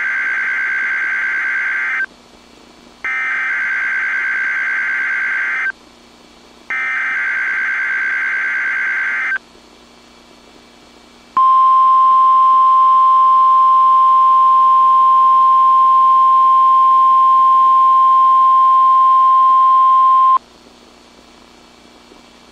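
NOAA Weather Radio emergency alert signal for a required weekly test: three bursts of warbling digital SAME header data, each about two and a half seconds long. After a pause of about two seconds comes the 1050 Hz warning alarm tone, one steady, loud tone held for about nine seconds, which then cuts off abruptly.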